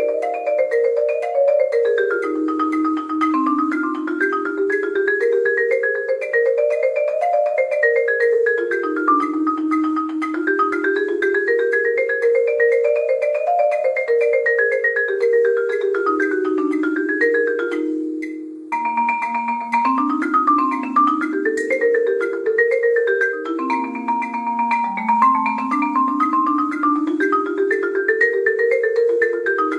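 Yamaha marimba played with mallets: a continuous stream of quick notes in a low line and a high line that climb and fall in waves. There is a brief break about two-thirds of the way through before the playing resumes.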